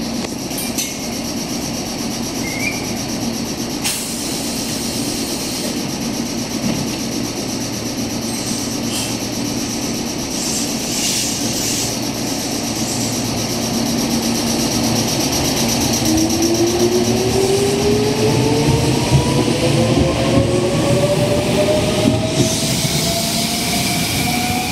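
Meitetsu 6800 series electric commuter train standing at the platform with a steady hum, then starting off. About sixteen seconds in, the traction motors' whine begins rising steadily in pitch as the train accelerates away, and the running noise grows louder.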